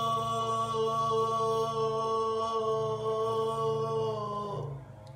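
A man's voice holding one long sung note, unaccompanied, at a steady pitch; near the end it drops in pitch and stops.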